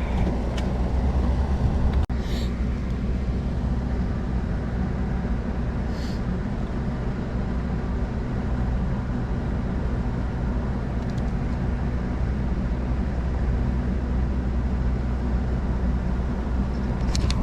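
Steady low mechanical hum, like an engine or machine running without change, with a brief break about two seconds in.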